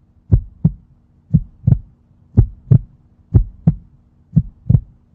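Heartbeat sound effect: paired low 'lub-dub' thumps about once a second, five pairs, over a faint steady hum, cutting off abruptly near the end.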